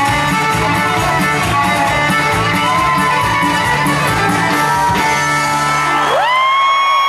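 A live band plays a jig tune on guitars with a steady beat; the rhythm stops about five seconds in, leaving a held chord. About six seconds in, a long high-pitched shout rises in over it.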